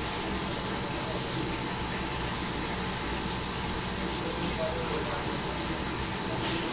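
Steady rushing background noise with a faint high-pitched whine.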